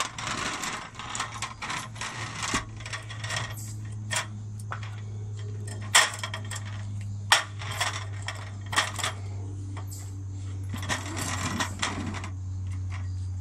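Metal clicks, taps and rattles from a folding aluminium camping table's frame and poles as they are handled and pushed into place, with scraping and rubbing in between. A steady low hum runs underneath.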